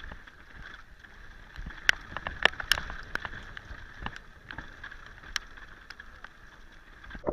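Mountain bike running down a rough dirt trail: steady tyre and riding noise with sharp knocks and rattles from the bike over bumps, a cluster about two to three seconds in and another single knock after about five seconds.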